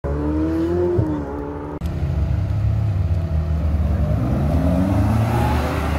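Sports-car engine revving, then about two seconds in a Ferrari F430's V8 accelerates away, its pitch climbing steadily for about three seconds.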